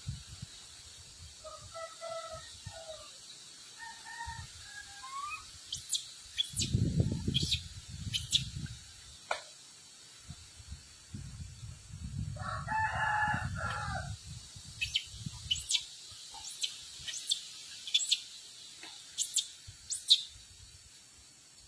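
A rooster crowing, with two short calls a few seconds in and one longer crow about 13 seconds in. Sharp high chirps come repeatedly through the second half, with some low rumble.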